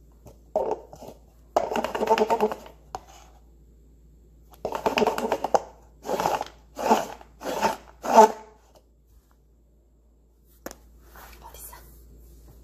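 A person's voice speaking in short phrases, the last four brief and separate, followed by one sharp tap a little over ten seconds in.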